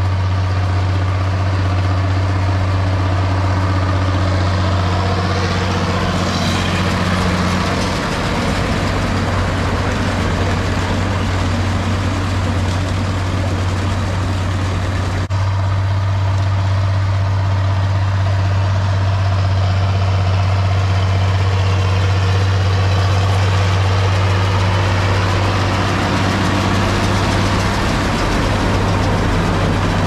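Farm tractor engine running steadily with a strong low drone, broken once about halfway through by an abrupt cut, after which it runs on much the same.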